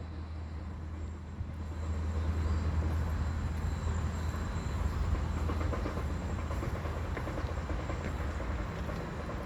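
A steady low rumble with a wash of noise over it, swelling over the first couple of seconds and easing slightly toward the end.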